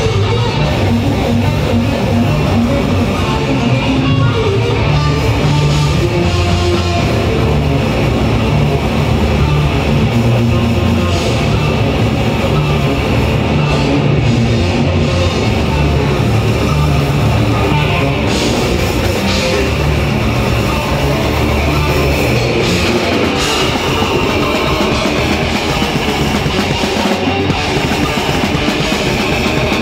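A technical death metal band playing live: electric guitar riffing over a drum kit, loud and without a break.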